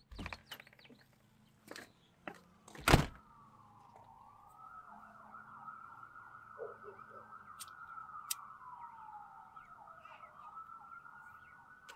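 A sharp knock about three seconds in, then an emergency-vehicle siren wailing, its pitch slowly rising and falling.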